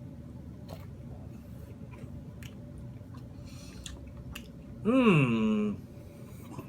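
A person chewing a mouthful of pizza and dip, with small wet mouth clicks. About five seconds in comes a short, loud hummed "mmm" that rises and then falls in pitch.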